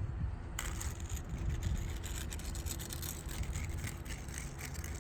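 Quick, irregular scraping and brushing strokes of a tool working wet concrete over a brick repair, starting about half a second in, over a low rumble.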